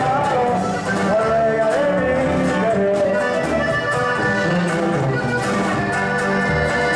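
Live norteño-style band music: an accordion carries the melody over tuba bass and guitar.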